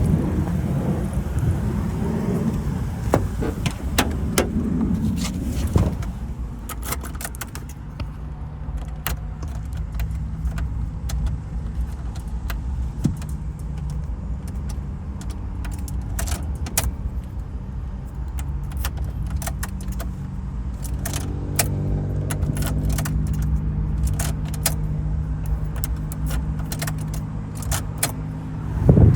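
Keys and small metal tools jangling, with many light metallic clicks, over a steady low mechanical hum that grows fuller about two-thirds of the way through.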